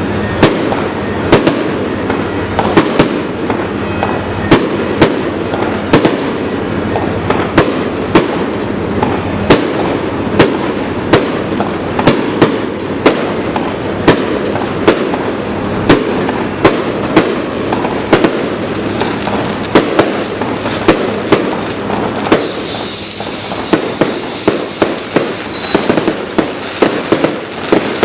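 Fireworks display: sharp bursts of aerial shells, several a second, over a continuous crackling din. About 22 seconds in, a run of high whistles falling in pitch joins for about five seconds.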